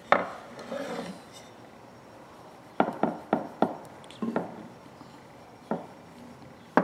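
Light knocks and taps of a hatchet being handled on a work board: one at the start, four quick taps around the middle, then a couple of single knocks.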